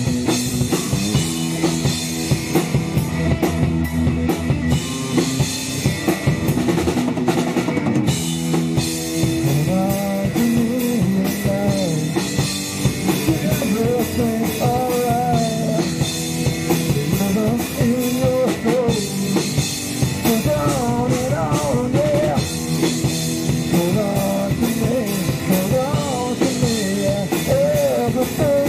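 Rock band playing live: drum kit with bass drum and cymbals driving under electric guitar. From about nine seconds in, a wavering melody line with bends comes in on top.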